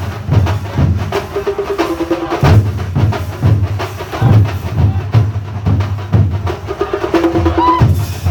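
Thambolam drum ensemble playing a fast, driving beat of low bass-drum strokes and sharp stick hits. A melody of short held notes stepping down in pitch comes in about a second in and again near the end.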